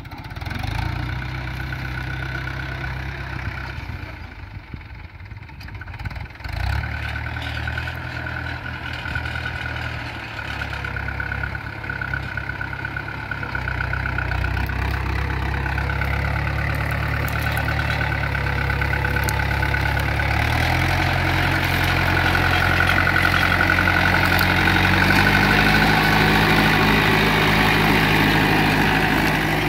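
Mahindra 475 DI Sarpanch tractor's four-cylinder diesel engine running steadily under load while pulling a plough. Its engine note holds level, with no drop in rpm, and grows louder in the second half as it comes close.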